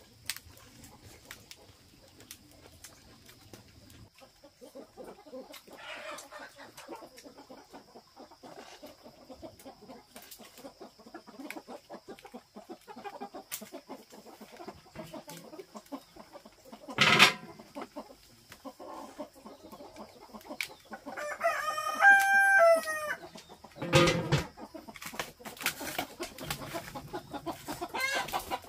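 Chickens clucking and a rooster crowing once, a crow of about a second and a half roughly three-quarters of the way through. Two loud sudden knocks stand out, one a little past halfway and one just after the crow, over a thin steady high tone.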